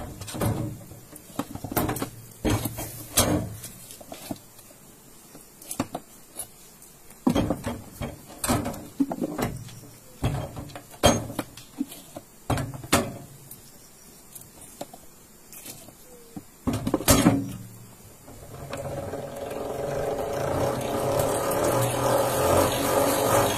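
Wooden honeycomb frames knocking and clattering against the metal as they are slotted into a stainless-steel manual honey extractor. About eighteen seconds in, the extractor's gear-driven basket starts spinning with a steady whir that grows louder as it speeds up to fling the honey out of the combs.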